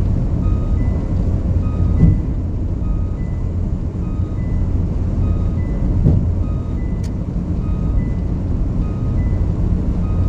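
Steady low road and engine rumble inside a car's cabin at highway speed, with a couple of light thumps. Faint music plays over it, short high notes in a repeating pattern.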